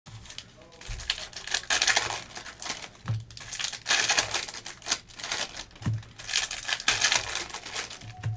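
Trading-card pack wrappers of 2022 Panini Optic football hobby packs crinkling and tearing as a stack of packs is ripped open by hand. The sound is a dense, irregular crackle.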